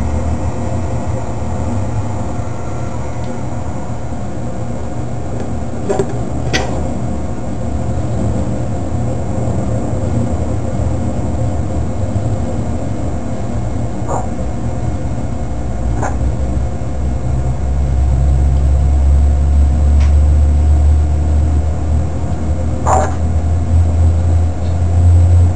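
Human-training centrifuge spinning up to idle speed: a steady mechanical hum with several steady tones, its low rumble growing louder about two-thirds of the way through as the arm speeds up. A few short clicks sound over it.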